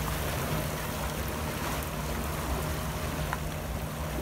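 Lagoon water lapping at the edge of the pavement, with a steady wash of noise and a steady low hum under it.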